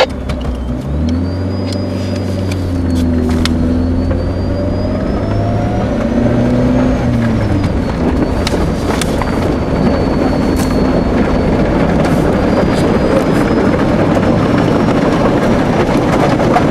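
Car engine running as the vehicle gets under way, its hum shifting in pitch in the first few seconds, while road and wind noise build up and grow louder.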